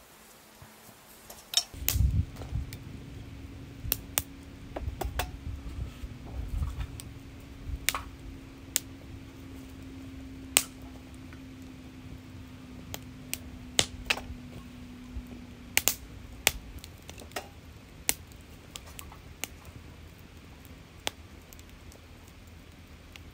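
Split kindling burning in a small stainless-steel fire pit: irregular sharp crackles and pops, with a low rumble that is strongest in the first few seconds. A faint steady hum runs under it until about two-thirds of the way through.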